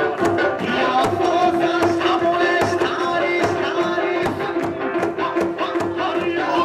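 Okinawan eisa folk music: hand-held barrel drums struck in a steady beat, with a long held note over them.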